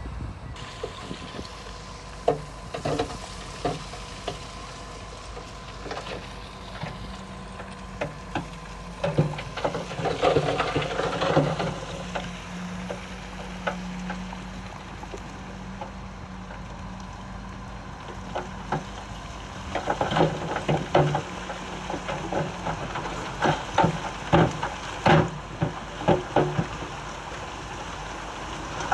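Heavy earthmoving machine's diesel engine running steadily, with many sharp clatters and knocks of stone and metal that come thickest near the middle and again near the end.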